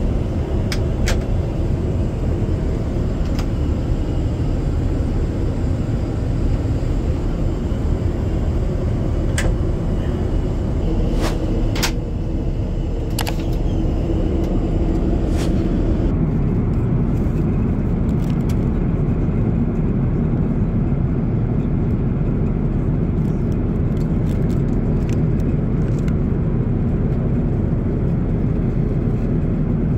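Steady rumble of Airbus A350 cabin noise in flight, with scattered faint clicks. About halfway through, the sound turns duller, with less hiss and more low rumble.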